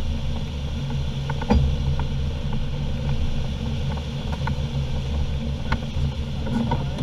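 Steady rumble of airflow in a DG505MB motorglider's cockpit while it glides after an engine failure, with its engine mast still raised. A few light clicks and knocks sound in the cockpit, the sharpest about a second and a half in.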